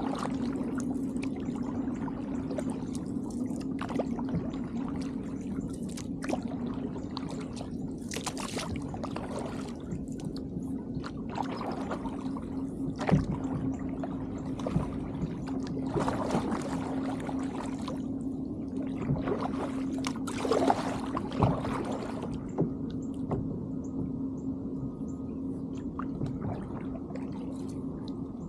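Kayak paddles dipping and pulling through calm water, with splashes and drips every second or two. A steady low hum runs underneath.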